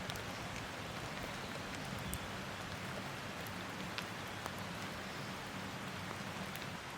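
Steady rain falling, with a few separate drops ticking close by.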